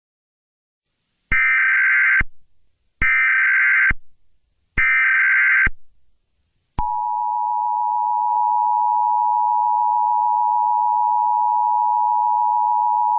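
Emergency Alert System tones: three short, buzzy SAME header data bursts, each just under a second long with short gaps between them. About seven seconds in, the steady two-tone EAS attention signal begins and holds.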